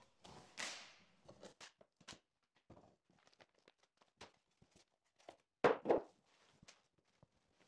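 Cardboard shipping box being opened and handled by gloved hands: scattered rustles, scrapes and light taps of the flaps and of plastic-wrapped papers, with a louder double knock against the cardboard about six seconds in.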